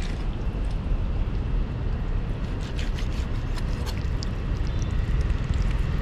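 Outdoor ambience: a steady low rumble with faint, short high chirps and ticks scattered through.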